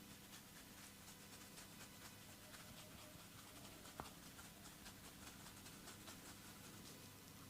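Near silence, with faint scattered clicks and soft rubbing, the quiet sounds of hands working oiled skin in a massage; one slightly sharper click comes about four seconds in.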